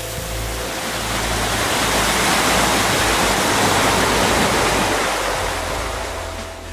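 Small waterfall splashing over mossy rock into a pool: a steady rush of falling water that swells in the middle and fades near the end.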